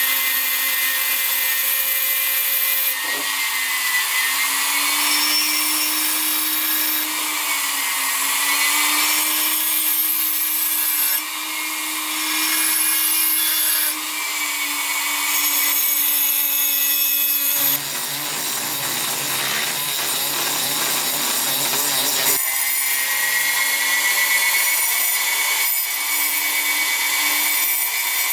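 Small electric power tool running with a steady motor whine while grinding into the steel spine of a knife blade to cut a crack and bone pattern. The sound comes in several cut-together pieces, with a rougher, scratchier stretch about two-thirds of the way through.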